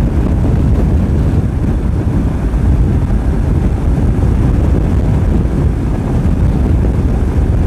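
Wind rushing over the microphone of a moving Royal Enfield Himalayan motorcycle: a steady low rumble with no distinct engine note standing out.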